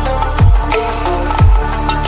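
Electronic background music: held synth notes over a deep, falling-pitch bass drum hit about once a second.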